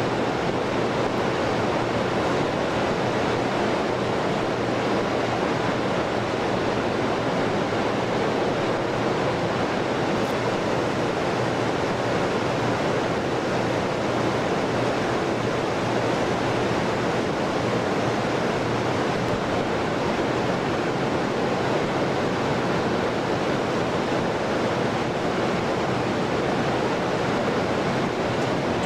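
Steady, even rushing noise with no breaks or changes: the air-handling and ventilation roar of a large assembly hall.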